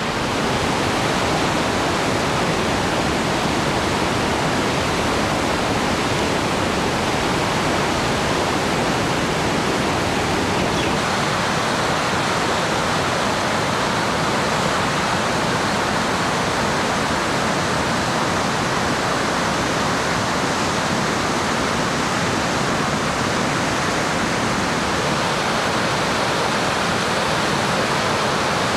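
Rushing river water, a loud steady noise with no breaks.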